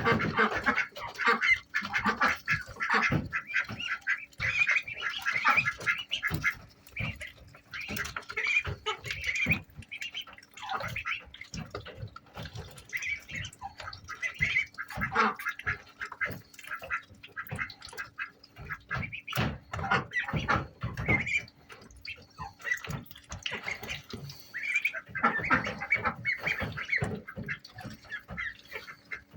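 A group of Indian Runner ducklings calling over and over in short, high peeps, busiest at the start and again near the end. Many short knocks and rustles come in among the calls, and a faint steady hum runs underneath.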